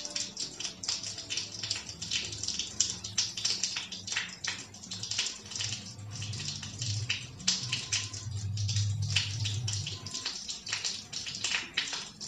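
Rain falling, with many uneven sharp splashes of drops; a low rumble swells about seven seconds in and fades about ten seconds in.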